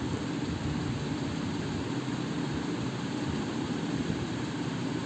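A steady low mechanical drone at an even level, with no separate strokes or scrapes standing out.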